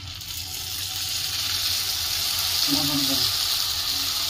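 Dahi bara fritters of urad dal batter sizzling in hot oil in a kadai as they are dropped in to deep-fry. The steady frying hiss starts at once and grows louder as more batter goes in.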